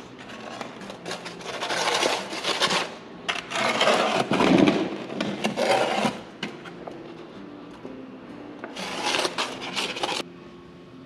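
Masonry trowel scraping runny mortar out of a plastic bucket and loading it into a grout bag: three spells of scraping and rustling, the middle one the longest and loudest.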